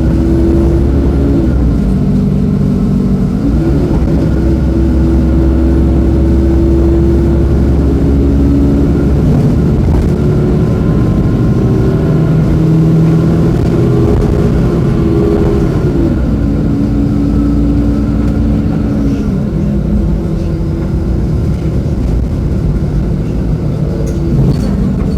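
Mercedes-Benz O-500U city bus's OM-926LA six-cylinder diesel engine running as the bus drives. The engine note rises and drops in pitch several times.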